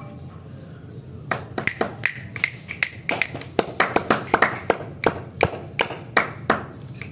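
Fingers tapping and clicking close to the microphone: a quick, irregular series of sharp clicks, several per second, starting about a second in. A steady low hum runs underneath.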